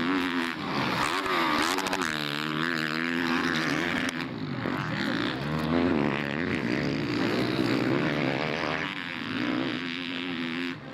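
Motocross motorcycle engines revving, the pitch rising and falling over and over as the throttle opens and closes.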